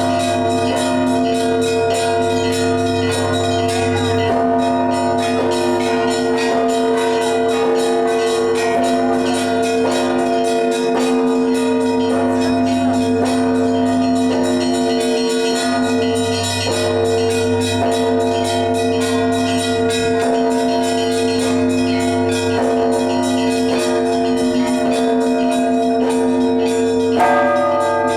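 Russian Orthodox church bells rung together in a continuous peal: small bells struck in quick, dense patterns over the long ringing tones of larger bells and a deep hum. About a second before the end, louder, higher bell strikes come in.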